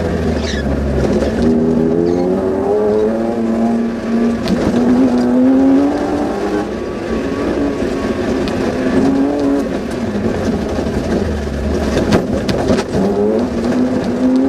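Suzuki Vitara rally car's engine heard from inside the cabin, pulling hard under full throttle, its note climbing through the revs, dropping back at each gear change and climbing again. A few sharp knocks cut through along the way.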